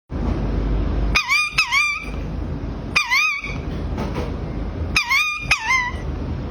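A parrot giving five short warbling calls, each rising and falling in pitch: a pair, a single one, then another pair. A steady background hum runs underneath.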